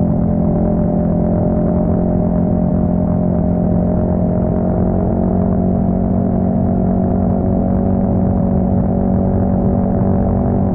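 Yamaha XSR 155's single-cylinder engine running through an aftermarket full exhaust system, its note holding steady with no revving.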